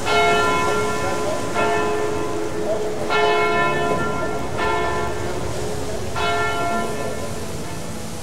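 Church bell tolling, struck about every second and a half, each stroke ringing on into the next, over a steady background hiss.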